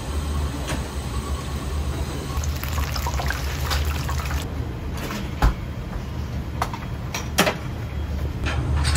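Battered tempura frying in a commercial deep fryer: the oil sizzles and crackles, over a steady low hum. The crackling thickens a couple of seconds in, with a few sharper clicks.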